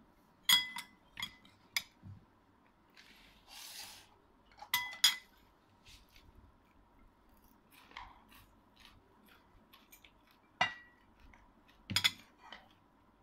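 A metal spoon clinking against a ceramic plate and mug: sharp clinks with a short ring, three in the first two seconds, a pair about five seconds in, and two more near the end. A soft brief rustle sounds between the first two groups.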